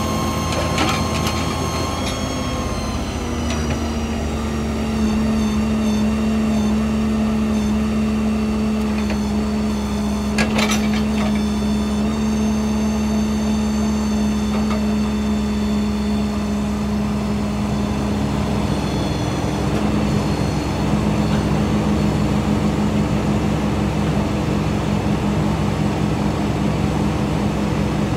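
Heavy engine running steadily, its pitch stepping up about three seconds in and shifting again around eighteen seconds in, with a short knock about ten seconds in.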